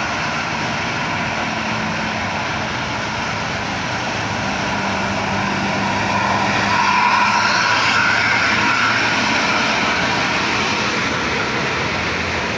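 A coach bus's diesel engine and tyres passing on an uphill road, the sound swelling to its loudest about seven seconds in and easing slightly afterwards.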